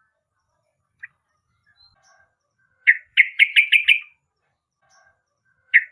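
Yellow-vented bulbul singing: a short note, then a loud, quick phrase of about six notes, repeated near the end.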